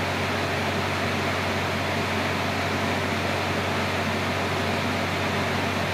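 Steady background hiss with a low, even hum and no other events: constant room or microphone noise.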